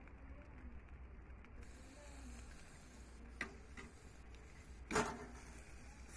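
Metal barbecue tongs clicking against a charcoal grill's wire grate while handling pork ribs: a sharp click about three and a half seconds in and a louder one about five seconds in, over a steady low hum.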